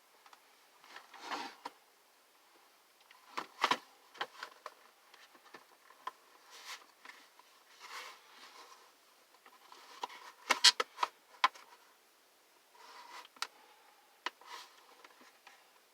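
Parts of a space heater's housing being handled and pushed together: irregular clicks, knocks and short scrapes, with a cluster of sharper clicks about ten seconds in.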